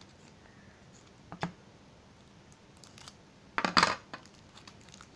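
Hands working open the plastic wrapper of a Milkybar: a sharp click about a second and a half in, then a louder, brief crinkling crackle a little before four seconds in.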